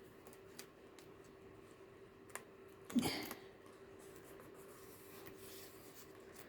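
Faint rustling and light ticks of paper and card being handled as journal pages and pockets are worked, with one brief louder rustle about three seconds in, over a faint steady hum.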